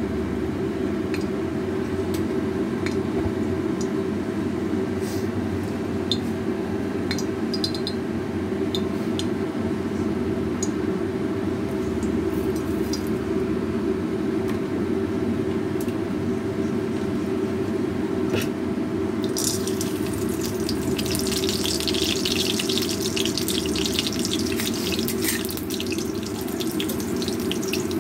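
A steady low rushing noise throughout, with a few scattered light clicks. From about 20 seconds in, mustard seeds crackle and pop densely in hot oil in a steel kadai, thinning out a few seconds later.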